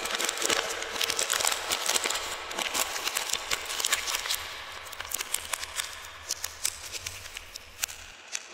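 Plastic chocolate-bar wrapper crinkling and crackling as hands fold and handle it around the bar, with many sharp irregular crackles that thin out near the end.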